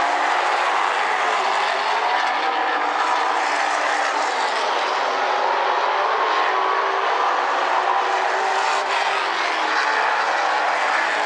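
Super late model stock cars' V8 engines running laps on a paved oval: a steady drone of several engines together, their pitches sliding up and down as cars come past and move away.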